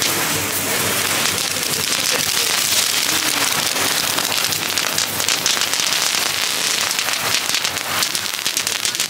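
Several small Category F1 ground fountains spraying sparks at once: a steady hiss full of fine, rapid crackling.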